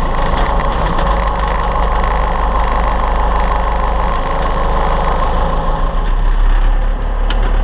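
Tractor engine running steadily. About six seconds in the low rumble grows stronger while a higher hum fades, and a short click comes near the end.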